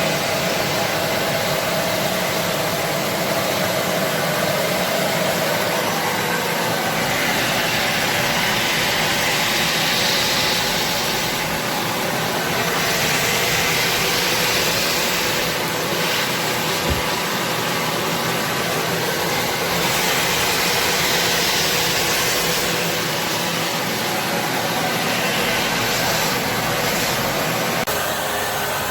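Kärcher SE 5.100 spray-extraction washing vacuum cleaner running steadily on a sofa, drawing up the sprayed cleaning solution. Its hiss grows brighter and then eases off several times as the nozzle is worked.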